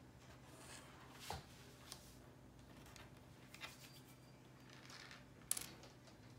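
Small wooden stamp-game tiles being picked up and set down on a wooden table: a few faint taps and clicks, the sharpest about five and a half seconds in.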